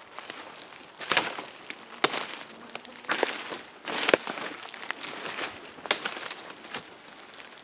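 Footsteps crunching through dry leaf litter and twigs, irregular steps about a second apart.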